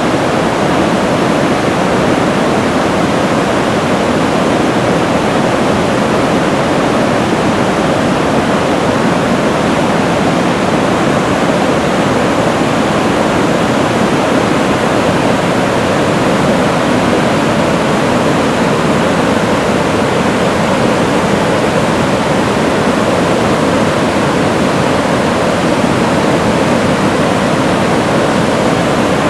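River rapid pouring over a rock ledge, its churning whitewater making a loud, steady rushing noise with no break.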